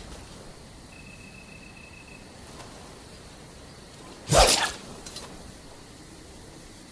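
A single short whoosh of an oxtail sword being swung, about four seconds in.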